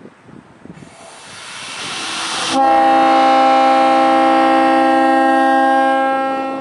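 Leslie S5T five-chime locomotive air horn blown on compressed air at about 120 psi. A hiss of rushing air builds for about two seconds. The horn then sounds abruptly as a loud, steady multi-note chord for about three and a half seconds before tapering off near the end.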